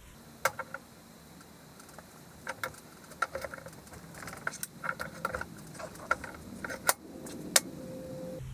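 Irregular metallic clicks and clinks of a hand-lever arbor press and its steel parts as it presses a bronze bushing into a differential gear, played sped up. The clicks come more often after the first couple of seconds.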